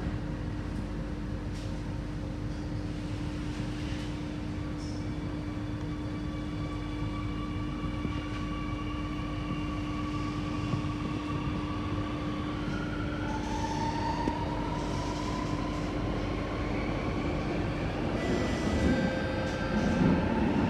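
Inside an Alstom Metropolis C830C metro car pulling away and accelerating: a steady hum, then several whining tones from the traction motors climbing in pitch from about eight seconds in, with wheel and tunnel rumble growing louder near the end.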